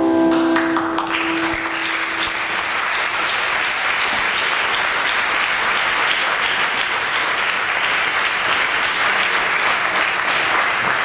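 An audience applauds steadily for about ten seconds. In the first second or two, the last held notes of film music fade out under the clapping.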